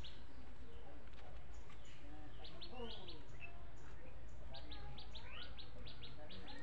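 Small birds chirping, quick runs of short high notes repeated several times, over a steady low background hum.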